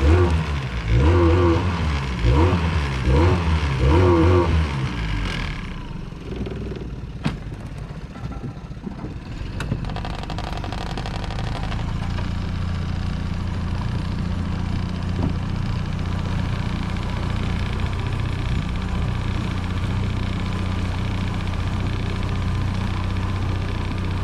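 Boat motor running. For the first few seconds its pitch wavers up and down about once a second, then it settles into a steady drone.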